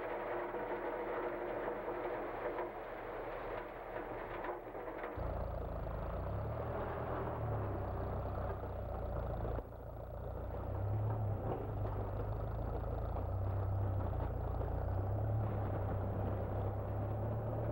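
Crushed stone pouring from a tipping dump truck's bed with the truck's engine running. From about five seconds in, a tractor front-end loader's engine runs with a low, steady rumble as it works the stone pile.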